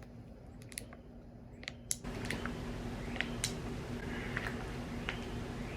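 Scattered small clicks and taps, with a few faint bird chirps; a steady low hum and background hiss come in about two seconds in.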